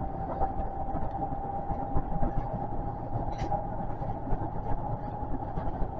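Osaka Metro 400 series electric train running at speed, heard from inside the front of the car: a steady rumble of wheels on rail with a thin, steady motor whine.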